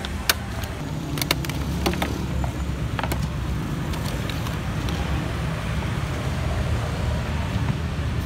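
A hand stapler snapping shut on plastic clamshell food boxes, several sharp clicks in the first three seconds, over a steady low rumble of road traffic.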